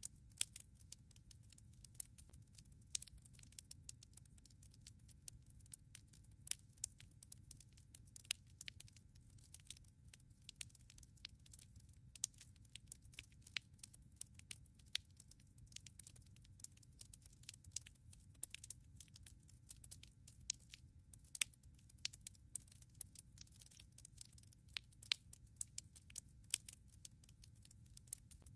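Wood fire in a fireplace crackling: irregular sharp pops and snaps, several a second and some much louder than others, over a soft low rumble of the flames.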